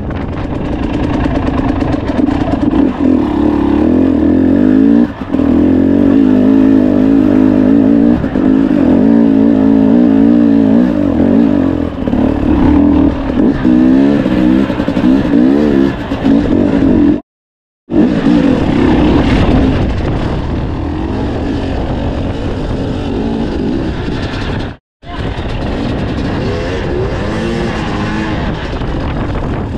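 KTM dirt bike engine being ridden over rocky trail, revving up and down with the throttle. The sound cuts out completely twice, briefly.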